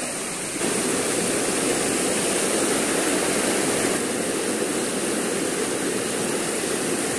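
Shallow river rushing over rocks: a steady hiss and rush of fast water, getting louder about half a second in.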